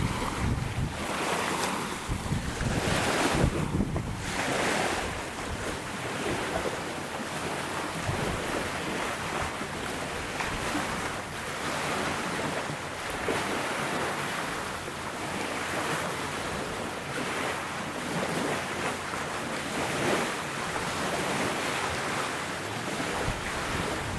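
Wind buffeting the camcorder microphone over lake water, a rushing noise that rises and falls in gusts every second or two.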